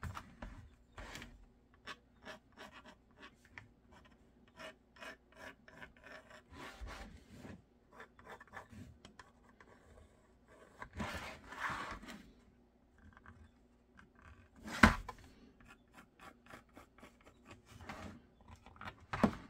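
White pencil scratching and rubbing along a black thermoformed plastic holster shell as its cut line is traced, with the plastic shell shifted and rubbed in the hands. One sharp knock about three-quarters of the way through.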